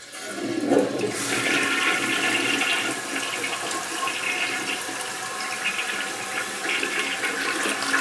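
Toilet flushing: water rushing and swirling down the bowl, coming on suddenly and then running loud and steady.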